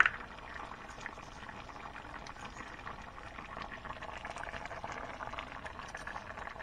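Coconut-milk fish curry simmering in a pan on a gas stove, a steady run of many small bubbles popping. There is a short click right at the start.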